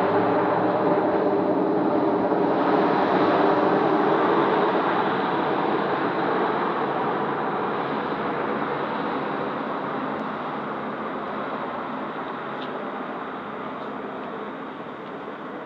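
Two helicopters flying overhead, their rotors and engines making a steady drone that fades slowly as they fly away.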